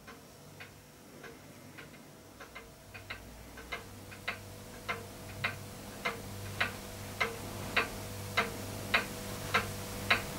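Regular mechanical ticking, a little under two ticks a second, growing steadily louder, over a low steady hum.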